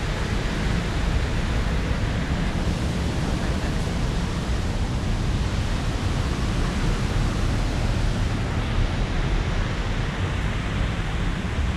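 Steady rushing water, an even roar with no breaks.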